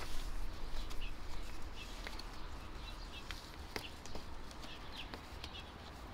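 The plastic hook-on edging of a mower's fabric grass-catcher bag being worked onto its metal frame by hand, giving scattered light clicks and handling noise. Birds chirp in short repeated calls in the background.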